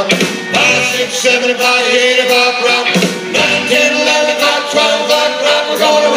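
Live band playing 1950s rock and roll.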